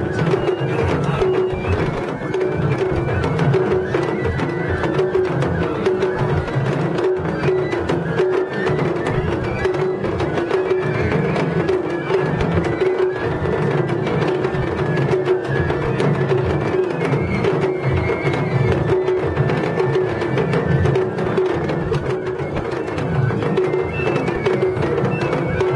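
Japanese festival hayashi music played on the floats' taiko drums: a dense, continuous drumming rhythm that keeps going without a break.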